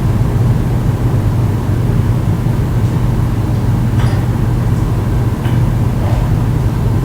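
Water heater running with a steady low hum, with a few faint ticks about four and five and a half seconds in.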